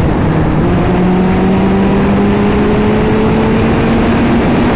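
Suzuki Hayabusa's inline-four engine pulling hard at highway speed, its note rising slowly and steadily, over heavy wind rush.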